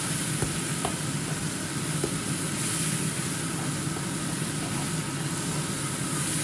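Sour cream sauce sizzling in a nonstick frying pan while a coil whisk stirs it into the browned butter and pan juices, with a few light clicks of the whisk against the pan. A steady low hum runs underneath.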